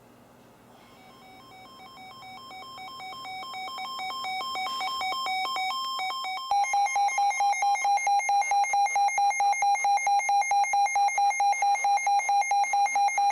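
Several NOAA weather alert radios sound their alarms for a severe thunderstorm warning. Beeping at two alternating pitches grows steadily louder, and about six and a half seconds in a louder, rapid beeping at a single pitch joins it.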